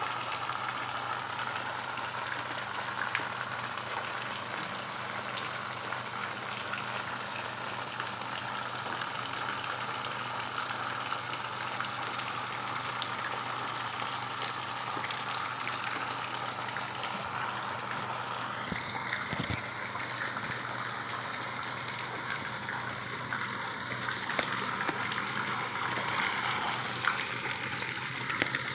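Steady rush and splashing of water in a shallow fish pond crowded with koi, with a few sharper splashes near the end as fish are scooped up in a hand net.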